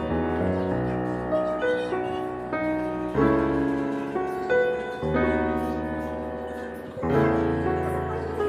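Background music: a slow piano piece, with chords struck every second or so that ring and fade.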